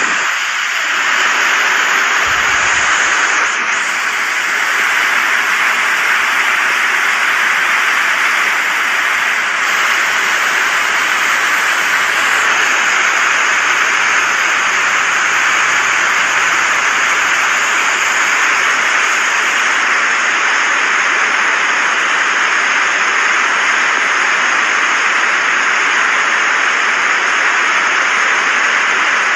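Steady rush of creek water flowing over rocks, a loud, even hiss that holds without change.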